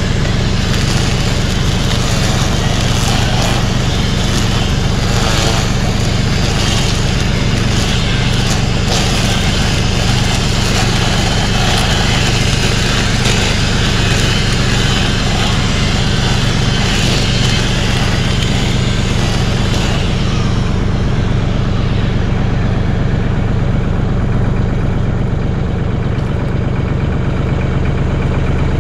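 Mahindra 1626 compact tractor's three-cylinder diesel engine running steadily at work, with a hiss in the highs that thins out about twenty seconds in.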